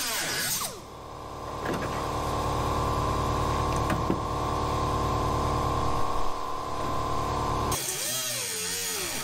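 Air-powered cut-off wheel (zip wheel) cutting through rusted car-body sheet metal, a steady high whine. About a second in it lets off briefly and spins back up, and near the end the whine stops abruptly and a different, wavering sound takes over.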